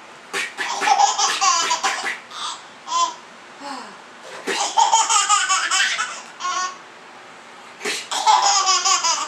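A baby laughing hard in rapid, pulsing peals, in three long bursts with short giggles between them.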